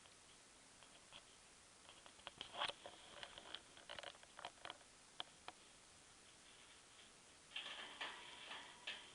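Faint clicks and scratches of a budgie clambering about its wire cage, in a cluster a couple of seconds in and again near the end.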